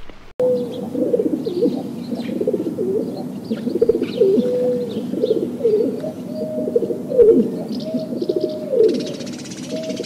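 Pigeons cooing, starting about half a second in: several throaty calls overlap, bending up and down in pitch, with faint higher chirps above them.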